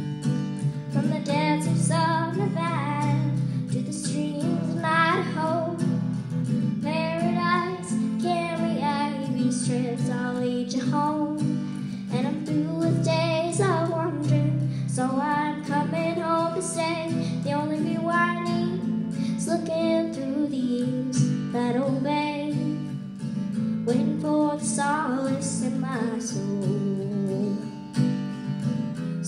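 A female solo singer performs a country-western song, accompanied by her own acoustic guitar.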